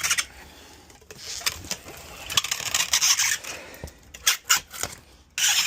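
Packing paper rustling and scraping against cardboard as it is crumpled and crammed into a box around a vacuum cleaner, in several bursts with sharp crinkles.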